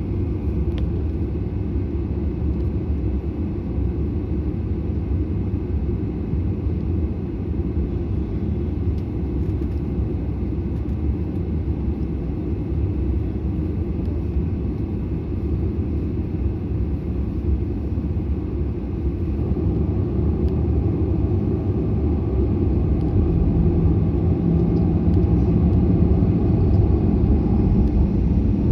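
Jet airliner's steady low rumble, growing somewhat louder in the last third, with a low steady hum joining in near the end.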